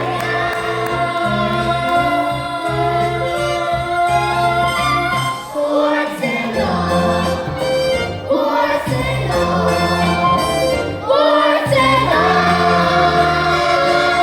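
Singing with instrumental accompaniment: a musical-theatre song, voices holding pitched lines over a bass that changes note every second or so.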